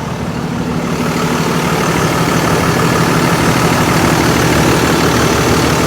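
Ford F750's 6.7 Cummins inline-six turbo diesel idling steadily, getting louder over the first few seconds and then holding.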